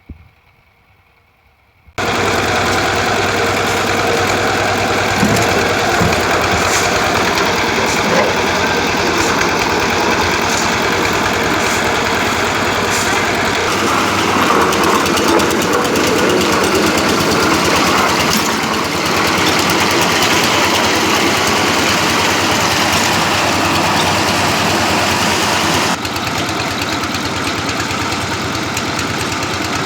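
A concrete mixer's engine running steadily. It comes in suddenly about two seconds in, and its sound shifts slightly, a little duller, near the end.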